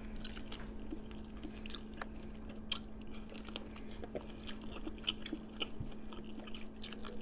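Close-up chewing of seafood, with many small wet mouth clicks and smacks and one sharp louder click a little under three seconds in. A faint steady hum sits underneath.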